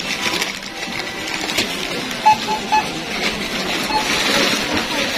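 Checkout barcode scanner beeping: three short beeps in quick succession about two seconds in, and another near four seconds. Underneath is the rustle of plastic snack packets being handled.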